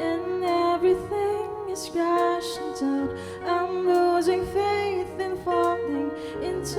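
Church worship team performing a slow praise song: female lead vocals holding and sliding between notes over a band accompaniment with a steady bass line.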